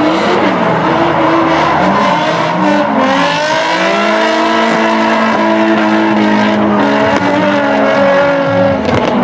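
Two drift cars, a Nissan 350Z and a purple S-chassis Nissan, sliding in tandem with their engines revving hard, the engine notes rising and falling against each other as the drivers work the throttle, over the squeal of tyres spinning and sliding.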